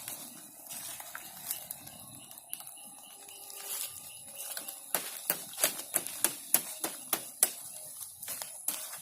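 A run of sharp clicks, roughly three a second, starting about five seconds in, over low background noise.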